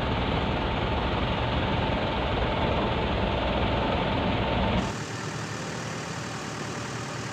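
Isuzu Elf NKR 71 truck's diesel engine idling steadily, heard from inside the cab. About five seconds in the sound drops abruptly to a quieter, thinner hum.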